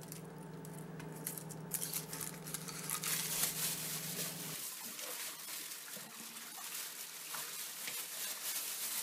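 Crackly rustling of dry onion skin as an onion is peeled by hand, with a steady low hum behind it; about halfway through, it gives way to a plastic brining bag crinkling and brine sloshing as a brined turkey is handled in a sink.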